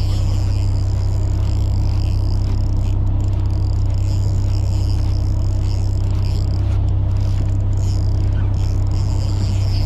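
Fishing boat's engine running with a steady low drone, a constant hum with a few steady higher tones above it.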